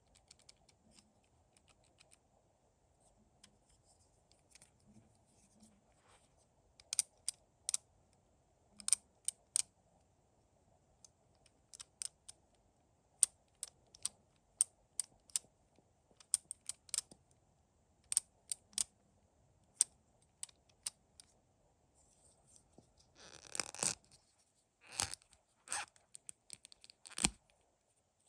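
Plastic LEGO Technic parts of a stepper shifter mechanism clicking as it is worked by hand: sharp clicks, single or a few at a time, with a longer rattling scrape about two-thirds of the way through.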